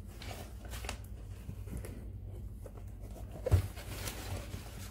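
Cardboard product box handled and turned over in the hands: soft rubbing and scraping, with a sharper knock about three and a half seconds in, over a low steady hum.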